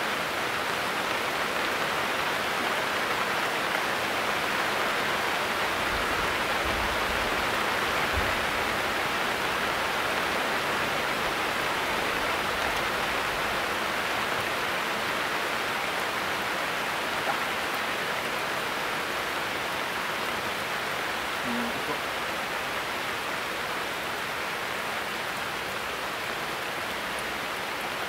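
Steady rain falling on a coconut palm grove, an even hiss that holds at the same level throughout.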